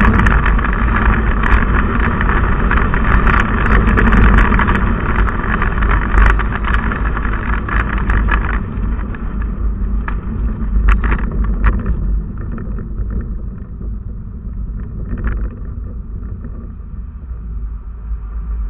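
Steady wind, road and engine noise from a moving vehicle, picked up by a camera riding on it. The rushing noise thins out and gets quieter about halfway through as the vehicle slows for traffic ahead.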